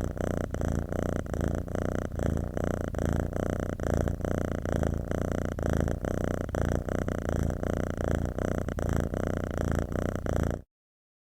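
Domestic cat purring very close to the microphone, a steady low purr that cuts off abruptly shortly before the end.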